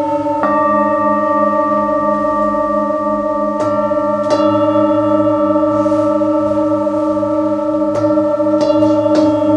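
Nepalese metal singing bowls ringing, struck one after another about six times. Each strike adds a new bright tone to a layered, sustained chord that wavers slowly as the tones beat against each other.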